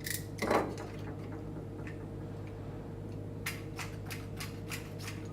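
A short cut through the plastic nozzle of an E-Grip adhesive tube, then a quick run of about six sharp clicks from a caulking gun being pumped, over a steady electrical hum.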